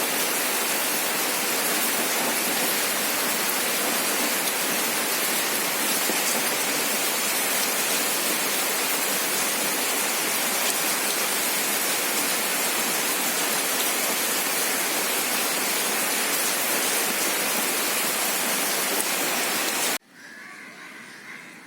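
Heavy rain falling, a dense, steady hiss of downpour. Near the end it cuts off abruptly to a much quieter background.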